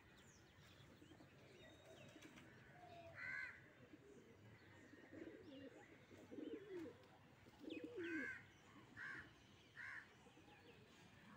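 Domestic pigeons cooing faintly, with a few low coos about five to eight seconds in. Several short, higher bird calls come in between.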